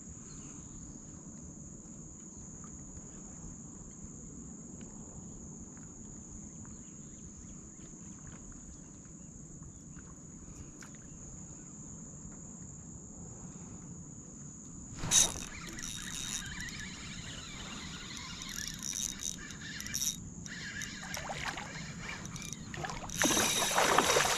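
Steady high-pitched insect buzz. About halfway through, a sudden sharp knock against the kayak, then irregular splashing and rustling that grows loudest just before the end.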